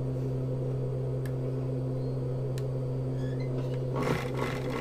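Four-thread overlock (serger) machine running idle with a steady low motor hum, not yet stitching. About four seconds in there is a short burst of noise as the fabric is fed under the presser foot.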